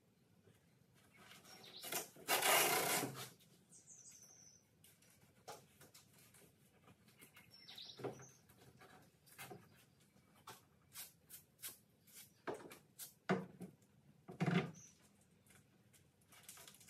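Hand work on an aluminium boat's deck: scattered light knocks and clicks, with a rasping noise lasting about a second near the start. A few faint bird chirps.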